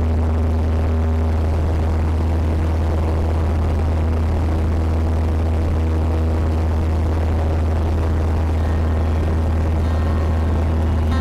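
Cessna 172's piston engine and propeller running steadily in flight, a constant low drone heard from inside the cabin.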